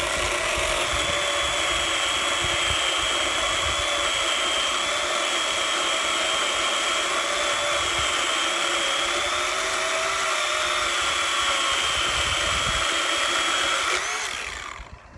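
Ryobi One+ OPP1820 18-volt cordless pole saw, its electric motor and 8-inch chain running at full speed through a cut, a steady high whine that wavers slightly. It starts abruptly and runs about fourteen seconds, then winds down as the trigger is released.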